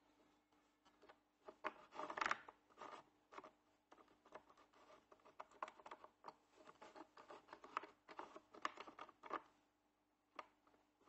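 Small wooden block being slid, rubbed and tapped against a wooden fence on a drill press table, with short scrapes and light knocks, the loudest cluster about two seconds in.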